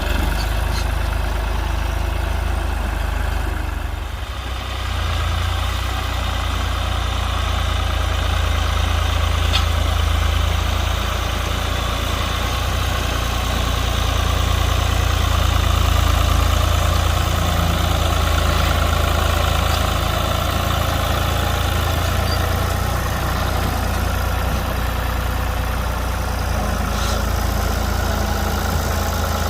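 Classic Ford tractor engine running steadily, with a brief dip in level about four seconds in.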